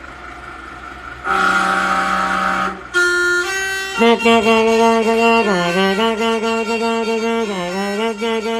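Truck's musical horn sounding a string of held notes: a louder note with a hiss of air, a few quick notes stepping upward about three seconds in, then a long held note that sags in pitch twice.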